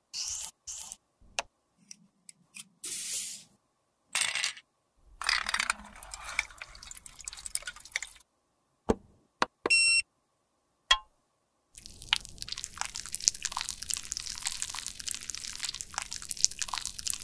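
A run of short scrapes and taps on a lipstick case in the first few seconds, then tap water running into a stainless steel tray of lipstick cases for about three seconds. A single bright ring follows, then a dense, steady crackling fills the last five or six seconds.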